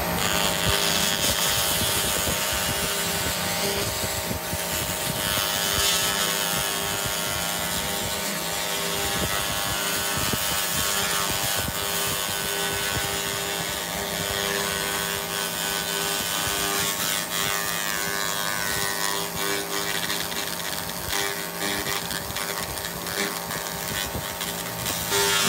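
A 2000 W continuous wave laser cleaner burning rust off a cast iron table saw top, with its beam scanning at 100 Hz: a steady crackling hiss from the surface over a constant machine hum.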